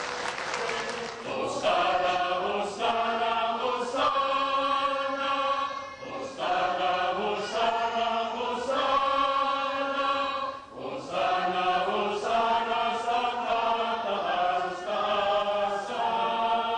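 A group of voices chanting together in held, sung phrases a few seconds long, with short breaks between them. The tail of applause is heard in the first second or so.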